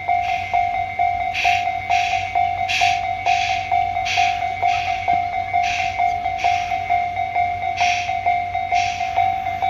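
Railway level-crossing warning bell ringing, a fast steady ding repeating about two to three times a second, while a train passes the crossing with irregular bursts of hiss.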